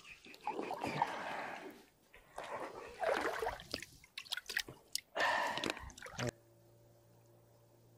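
Water splashing and sloshing in the shallows close to the microphone, in four short bursts over about six seconds. It then cuts off suddenly to a faint steady hum.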